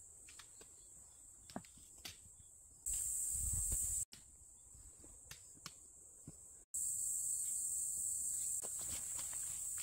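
A steady high-pitched chorus of insects in the woods, cutting in abruptly about three seconds in and again near seven seconds, with a low rumble under it. In the quieter stretches between, scattered soft footfalls and small clicks come from someone walking on a rocky trail.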